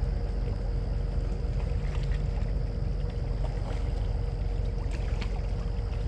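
Steady low rumble and hiss of the riverside at night, with a faint steady hum through it and a few light clicks.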